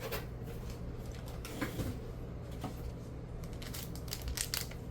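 Small plastic clicks and rattles of LEGO pieces being handled and pressed together, sparse at first and coming quicker in the last second or so, over a steady low hum.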